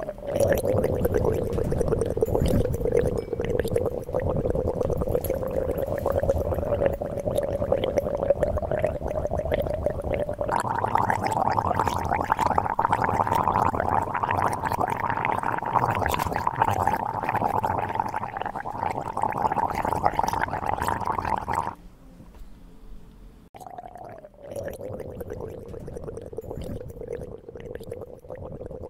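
A person's mouth-made motorcycle engine noise, a buzzing lip-trill 'brrr', held at a steady pitch. It jumps higher about ten seconds in, breaks off for a couple of seconds past twenty seconds, then starts again with a falling pitch.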